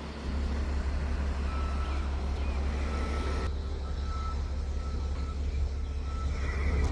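A large engine running steadily, with a faint reversing beeper sounding on and off through the middle.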